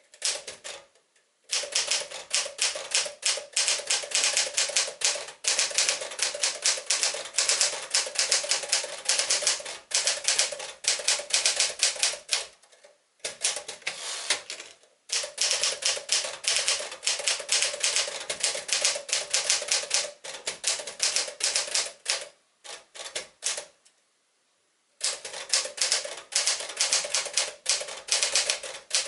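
1963 Smith-Corona Sterling 5AX manual portable typewriter being typed on quickly: fast runs of key strikes, broken by a few short pauses.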